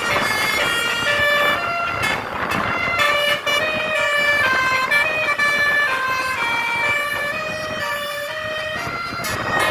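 Bus telolet horn: a tour bus's multi-tone musical horn playing a tune of quick, stepped notes.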